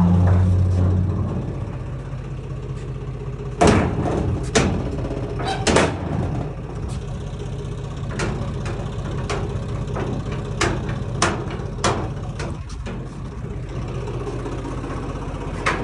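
Tractor engine idling steadily, with a series of sharp metal clanks and knocks from corrugated sheet-metal gate doors being swung and latched.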